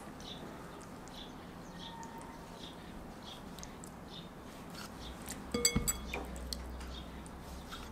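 Knife scoring raw chicken drumettes held over a glass bowl of milk: faint wet cutting and handling of the meat, with a short cluster of clinks against the glass bowl about five and a half seconds in.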